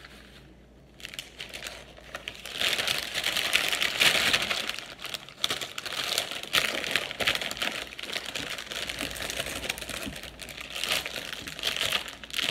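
Thin clear plastic packaging crinkling and rustling as it is pulled open and handled, starting about two seconds in.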